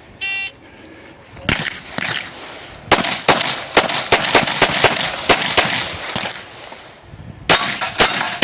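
Shot timer beeps once, then a compensated Glock 35 pistol fires rapid strings of shots: a single shot, about ten fast shots, a pause of about a second and a half, then another fast string.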